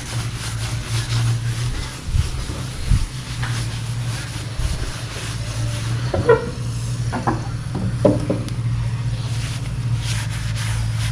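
A steady low mechanical hum, with a few brief faint sounds in the second half.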